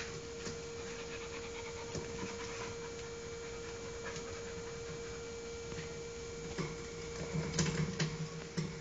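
Samoyed dog panting, with scattered small clicks and taps, a faint steady hum, and a louder low pulsing sound over the last two seconds.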